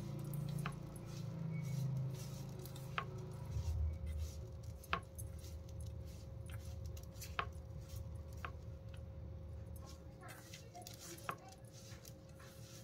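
Grated bottle gourd and spices being squeezed and tossed by hand in a metal bowl, a soft handling sound with about six sharp clicks against the bowl.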